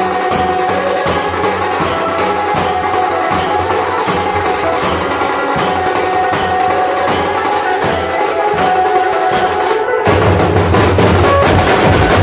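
Dhol-tasha drumming beating steadily under a ringtone melody. About ten seconds in, the music switches to a louder, fuller section with more bass.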